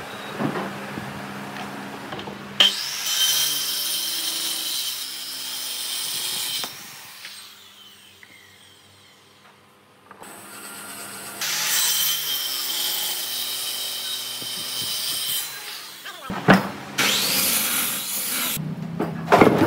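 Power saw cutting a thick wooden plank in two long passes with a pause between, followed near the end by several knocks of wood being handled.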